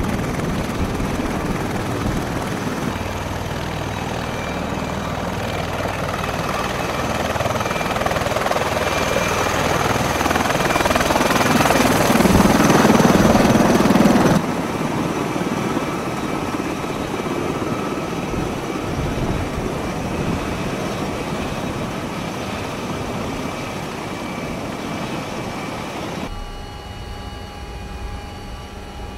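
V-22 Osprey tiltrotor running with its proprotors in helicopter mode: the steady rush and whine of its twin Rolls-Royce turboshaft engines and rotors, building louder until about halfway through, then dropping suddenly and slowly fading. Near the end it is heard from inside an aircraft, quieter, with a few steady humming tones.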